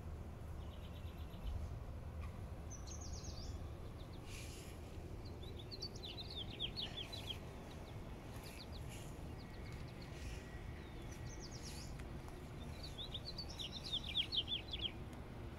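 Small birds chirping in several bursts of quick, high notes, the loudest near the end, over a steady low background rumble.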